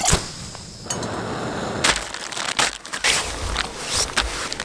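Food packaging and camping gear being handled: crinkling and rustling with irregular knocks and clicks.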